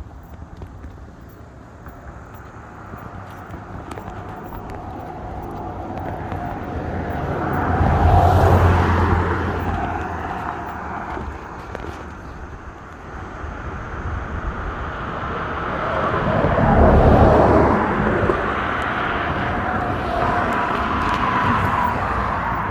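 Road traffic: two vehicles pass close by, each one swelling in loudness and then fading, with a third, fainter one near the end.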